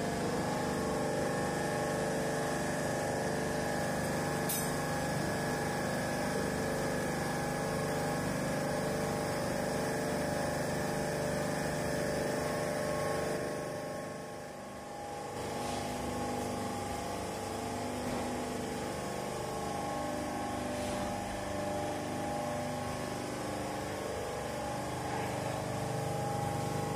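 A machine running steadily with an engine-like hum, dipping briefly about halfway through, after which its pitch pattern wavers a little.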